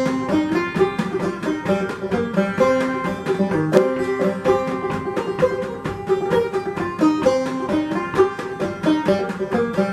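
Banjo played clawhammer style: a steady old-time tune of quick, ringing plucked notes.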